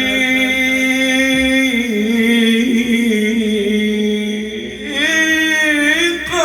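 Solo male voice singing a mawwal, drawing a wordless melisma out between words: a long held note, then a lower, ornamented run. A short breath comes about four and a half seconds in, then a new wavering phrase.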